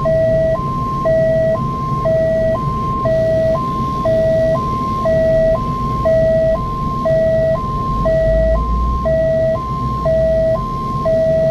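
Ambulance two-tone hi-lo siren, switching between a low and a high note about every half second, over the low rumble of engine and road noise from inside the moving vehicle.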